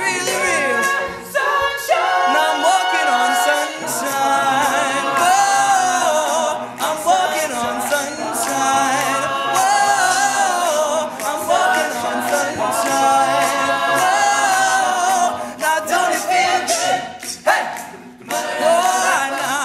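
An a cappella vocal group singing in harmony, several voices with no instruments, continuing a pop song arrangement without clear lyrics.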